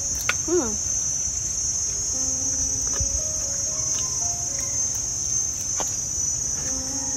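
Insects chirring in a steady, high-pitched drone.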